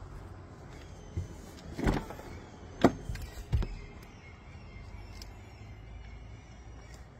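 A BMW's rear door being unlatched and swung open: a few knocks and clicks over a steady low rumble, the loudest a sharp click about three seconds in.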